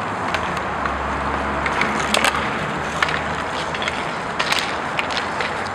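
Inline roller hockey play: skate wheels rolling and grinding on the rink floor as a steady rush, with many sharp clacks of sticks and the puck, most of them about two, three and four and a half seconds in.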